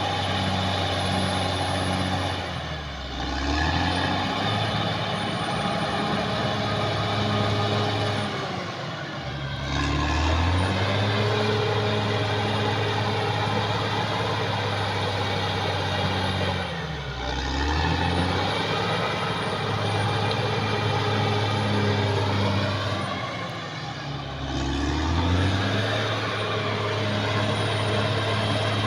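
Caterpillar D6R XL bulldozer's diesel engine running hard with a thin high whine, its revs dipping and recovering four times, about every seven seconds.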